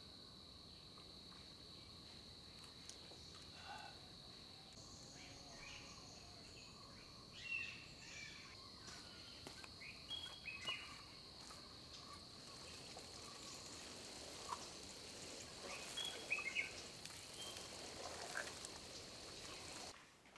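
Faint rural morning ambience: a steady high-pitched insect drone, with scattered short bird chirps and calls over it.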